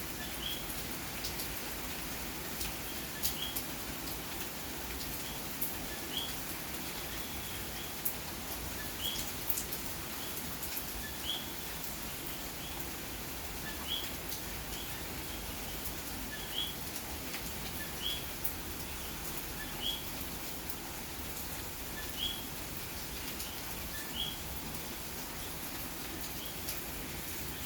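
Steady rain with sharp drips, while common coquí frogs call their short two-note "co-quí", rising on the second note, repeated every second or two.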